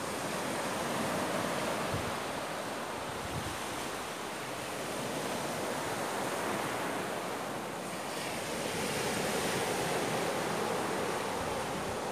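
Ocean surf breaking and washing up a sandy beach: a steady rush of waves that swells and eases twice.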